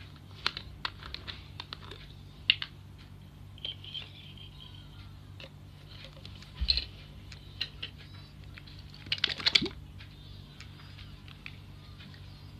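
Scattered light clicks and taps of small plastic objects being handled and set down on a tiled floor, with a dull knock a little past the middle and a quick cluster of clicks about nine seconds in, over a low steady hum.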